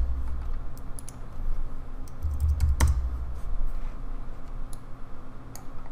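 Computer keyboard typing: scattered keystrokes, with a low thump about two and a half seconds in.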